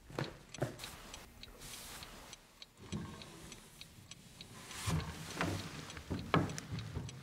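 Gilt cartel wall clock ticking steadily. In the second half there are a few louder wooden knocks as the upright piano's lid is handled and opened.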